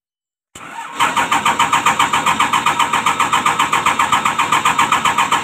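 Komatsu PC200-8 excavator's six-cylinder common-rail diesel being cranked by its starter, starting about a second in and going on as a loud, even pulsing several times a second without catching. The engine won't start on its own because the common rail can't build enough pressure while cranking.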